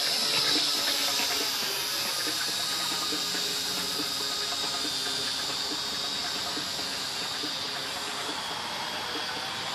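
Syma X8C quadcopter's motors and propellers running in flight: a steady high hiss and whine that slowly grows fainter as it climbs away.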